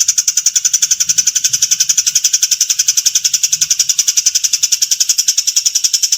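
A songbird's harsh, high-pitched rattling trill, a rapid even series of about twelve notes a second, held without a break.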